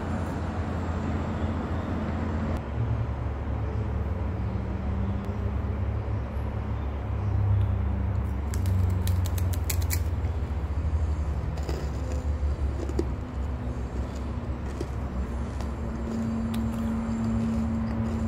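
Steady low rumble with a low hum throughout. About halfway through comes a short burst of crackling and clicking from the plastic wrapper of a rice crisp bar being opened.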